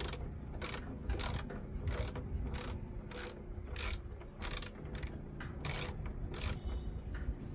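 Hand tool working in regular strokes, about one every two-thirds of a second, over a steady low hum.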